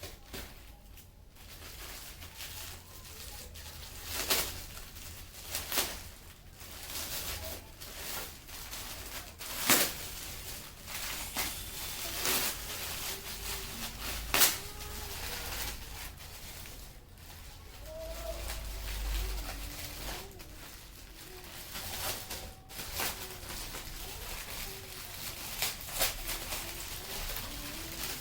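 Gift wrapping and packaging being handled, crinkling and rustling, with irregular sharp crackles and rips as presents are unwrapped.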